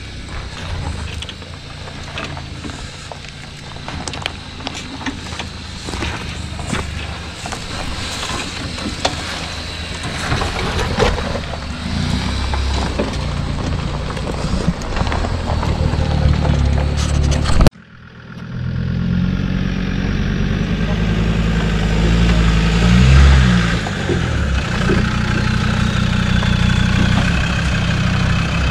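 Off-road 4x4 engine running as the vehicle crawls over a rocky track, with many sharp clicks and knocks from stones under the tyres. About two thirds of the way through the sound breaks off suddenly into a louder engine running steadily, its pitch rising and falling briefly a few seconds later.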